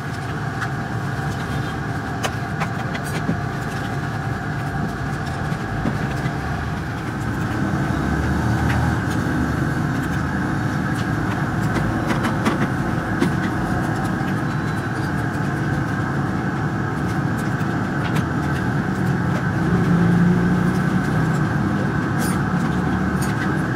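A steady mechanical drone with a low hum, a little louder about a third of the way in, and scattered light clicks from lead battery grids being handled and stacked.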